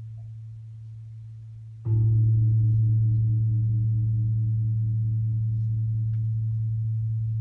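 A deep, bell-like metal instrument is struck once about two seconds in and rings on with a pulsing wobble as it slowly fades. The dying tail of an earlier strike is heard before it, and it is struck again at the very end.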